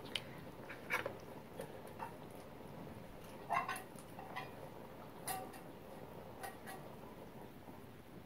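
Metal spoon scraping and clinking against a small stainless-steel bowl as chopped mushrooms are tipped into a soup pot: a few light, separate clinks and scrapes, the loudest about three and a half seconds in.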